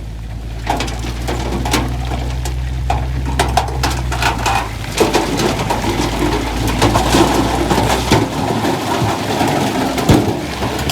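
Heavy earthmoving machine at work: a steady low diesel engine hum with irregular clanks and knocks over it, the low hum falling away about eight seconds in.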